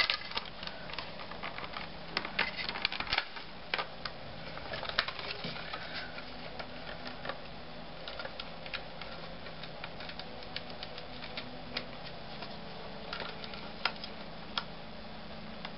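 Irregular plastic clicks and taps from handling a partly disassembled CD player and pressing its buttons, over a faint steady hum.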